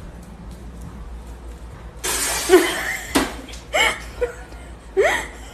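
A sudden loud, breathy vocal outburst about two seconds in, then two short rising exclamations, a startled reaction mixed with laughter.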